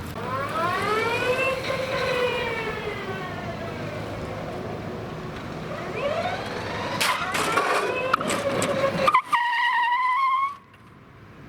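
Modified electric Cushman utility vehicle running, its drive motor whining: the pitch rises and falls, rises again with a few clicks, then holds a steady higher whine and cuts off abruptly near the end.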